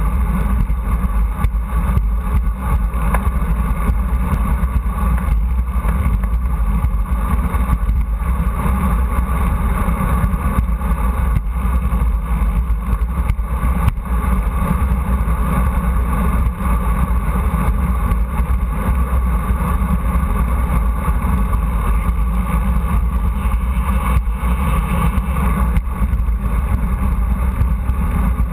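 Steady rushing rumble of wind buffeting a handlebar-mounted camera's microphone on a road bike ridden at speed.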